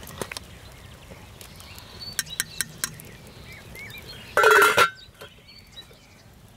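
A few light metal clinks of a spoon against a stainless steel cooking pot, then the pot's stainless steel lid clangs down onto it about four and a half seconds in, ringing briefly.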